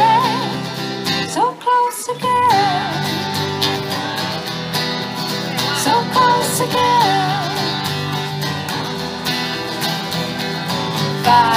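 Acoustic country-folk trio playing between sung lines: strummed acoustic guitars over a plucked upright double bass, with a high wavering melody line coming in a few times.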